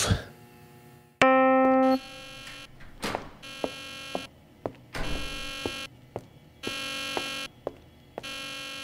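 Electronic alarm buzzer blaring in repeated blasts, roughly every second and a half: the first, about a second in, is loud and abrupt, and the later ones are quieter. Short knocks sound between the blasts.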